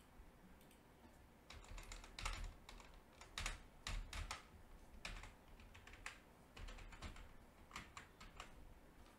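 Faint typing on a computer keyboard: keys clicking in short runs, starting about a second and a half in, with brief pauses between runs.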